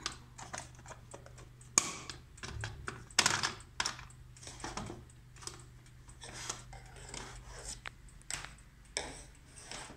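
Irregular light clicks and taps, several every second, the sharpest about two and three seconds in, over a faint steady low hum.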